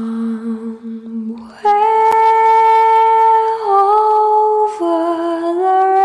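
Background music of long held notes: a low note for about the first second, then a higher line that steps to new pitches every second or so.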